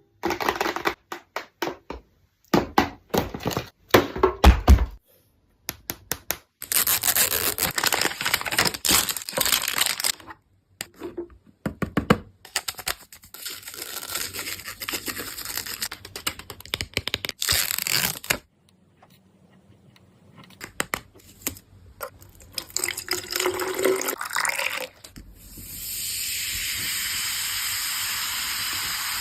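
Product packaging being handled and opened: irregular bursts of crinkling, tearing and light tapping, with a quieter lull about two thirds of the way through. Near the end a steady hiss sets in and keeps going.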